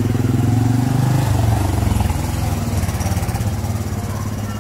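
A motor vehicle's engine running with a steady, fast pulse, loudest at first and easing off gradually, its pitch dipping slightly about a second in.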